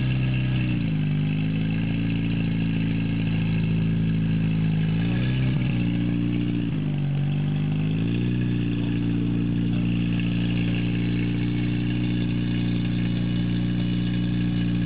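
PS 12 portable fire pump engine running steadily while pumping water into the relay hose line. Its speed is throttled down about a second in, brought back up around five seconds, dropped again briefly and raised near eight seconds, where it holds: the operator adjusting the pump's output pressure.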